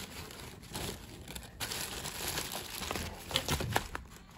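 Crinkling and rustling of a reusable plastic shopping bag and the plastic packaging of groceries as a hand rummages in the bag and pulls out a packet. The rustle swells about a second and a half in, and a few sharper crackles come near the end.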